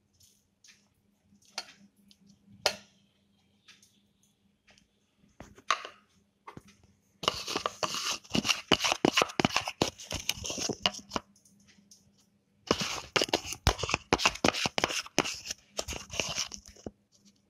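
Salt and black pepper being added to a bowl of pineapple: a dry, rapid crackling in two bursts of about four seconds each, the first starting about seven seconds in.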